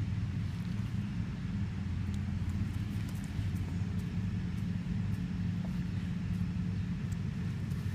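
Steady low engine drone running at an even speed, with a few faint ticks over it.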